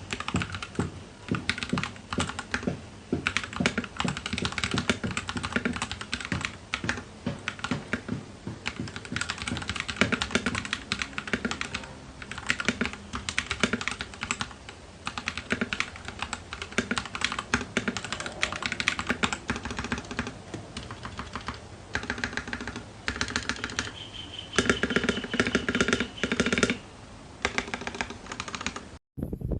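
Royal Kludge RK61 mechanical keyboard being typed on: a fast, irregular stream of key clicks and clacks that stops abruptly near the end.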